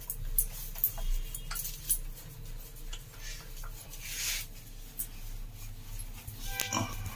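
Doberman Pinscher puppies nursing from their mother: scattered small clicks, suckling and rustling of bodies, with a short whimper near the end.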